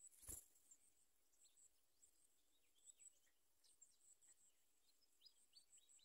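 Near silence: faint outdoor ambience with a thin, high steady insect trill and scattered faint short bird chirps. There is one soft thud about a third of a second in.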